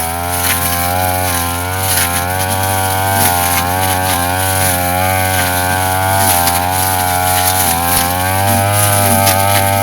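Brush cutter engine running at high speed, its pitch wavering slightly up and down as it cuts grass, with scattered light ticks.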